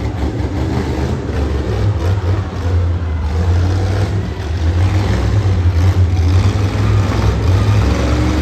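Monster truck engines running hard under heavy throttle: a loud, deep engine rumble that builds over the first few seconds and then holds.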